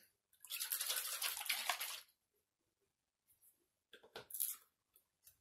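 A can of Minwax oak wood stain being shaken for a little under two seconds, the liquid sloshing inside. A few short clicks and rustles follow near the end.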